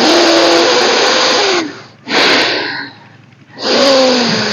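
A person taking long, deep yogic breaths in and out, heard as three loud rushes of air, the first about a second and a half long: the slow inhale-exhale breathing that closes a round of kapalbhati.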